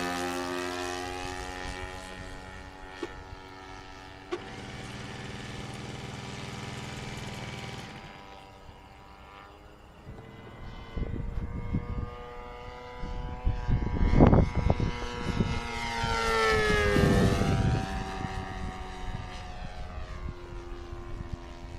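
Radio-controlled model airplane's engine droning as it flies, dropping in pitch as it passes near the start and rising then falling again about 17 seconds in. Gusts of wind buffet the microphone in the middle.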